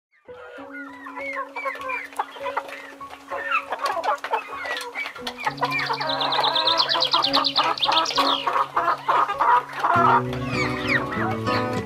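Chickens clucking with small birds chirping, the calls growing dense and busy in the middle, over low steady held tones; guitar music comes in near the end.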